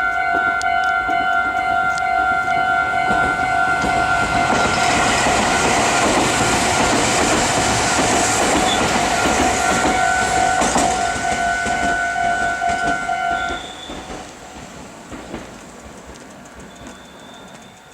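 A Meitetsu train passing through a level crossing, the noise of its wheels on the rails building and then fading away, while the crossing's electronic warning bell rings steadily. The bell cuts off suddenly about three-quarters of the way through, as the train noise dies down.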